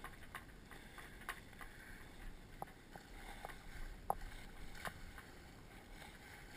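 Faint water sloshing against a sailboat's hull, with scattered small clicks and knocks and a low rumble of wind on the microphone.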